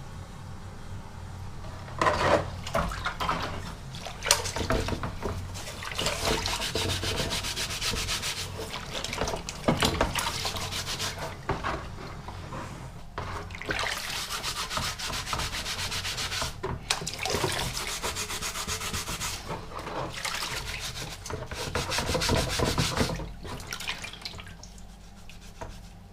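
Steel M40 helmet shell being scrubbed by hand, a long run of quick, rough rubbing strokes that starts about two seconds in and dies away near the end.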